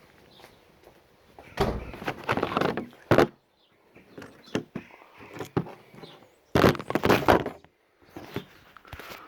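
Handling clatter of a CO2 Beretta 92 airsoft pistol being loaded with a steel BB: two spells of clacks and clicks, about a second and a half in and again near seven seconds, with lighter ticks between.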